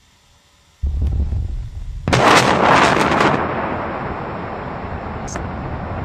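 Explosion sound effect. A low rumble starts about a second in, and a loud blast follows about a second later, dying away into a long rumble with a short sharp crack near the end.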